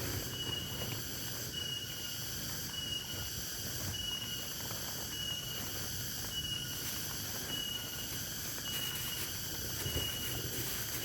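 Outdoor ambience of animal calls: a short, high chirp repeating at an even pace about once a second over a steady, insect-like hiss.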